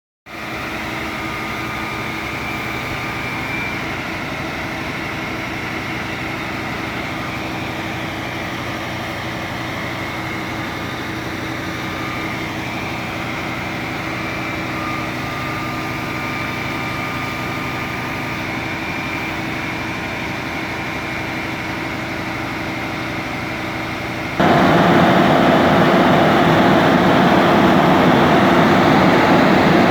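An engine running steadily, then suddenly stepping up to a louder, faster run about 24 seconds in.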